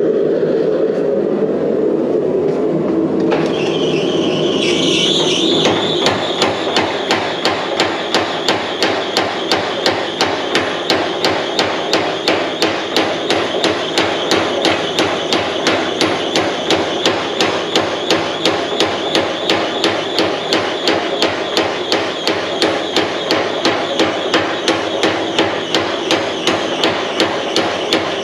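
A steady rushing noise, then, from about six seconds in, a long run of evenly spaced hammer blows on steel, about three a second, as the drawknife blade is forged.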